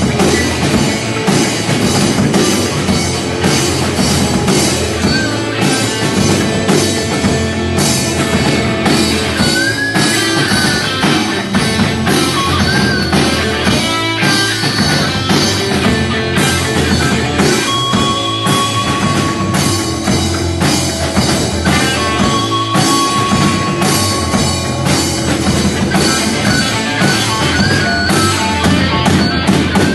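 Instrumental punk rock passage with a drum kit and electric guitars playing steadily, with no singing. Held, bending lead notes come in around the middle.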